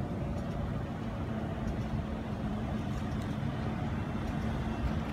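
Steady low rumble of road traffic and idling cars, with a faint steady hum that comes in about a second in.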